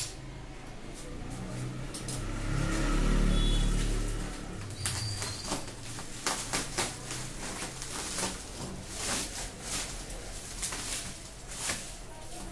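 Plastic bubble wrap crinkling and packing tape being peeled off by hand, in many short crackles and rips from about five seconds in. Before that, a low rumble swells and fades between about two and four seconds in.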